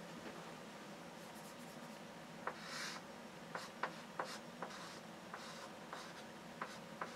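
Chalk writing on a blackboard, faint: one short scratchy stroke about three seconds in, then a string of sharp, irregular taps as figures are chalked up.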